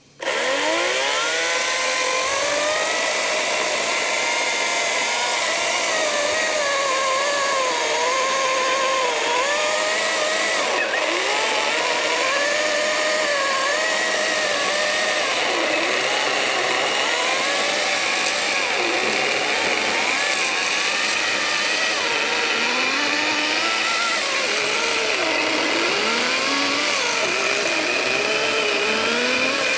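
Battery-powered Wild Badger 16-inch electric chainsaw cutting through a log. The motor and chain whine runs steadily, its pitch repeatedly dipping and recovering as the cut loads the motor.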